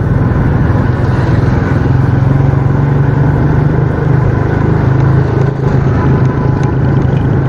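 Motorcycle engine running at a low, steady speed, heard from the rider's seat through a helmet-mounted microphone, with a rumble of wind and road noise.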